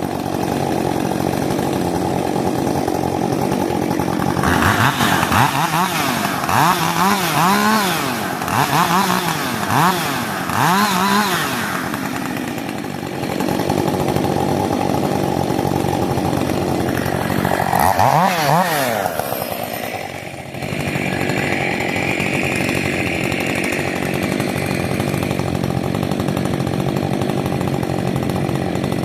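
Rebuilt Husqvarna 562 XP two-stroke chainsaw running while warming up. It idles and is blipped up and down about six times in quick succession a few seconds in, then revved once more past the middle.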